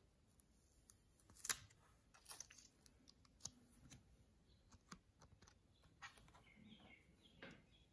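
Faint small clicks and crinkles of a clear plastic sticker being handled and pressed onto a plastic speaker shell, the sharpest click about a second and a half in.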